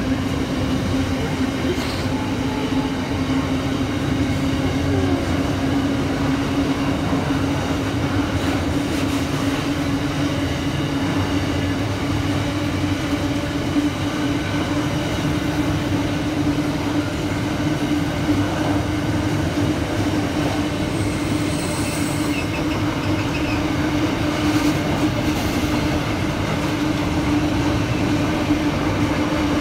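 Long container freight train rolling past: the steady rumble of its loaded container wagons on the track, with a constant low drone and a few faint clicks from the wheels.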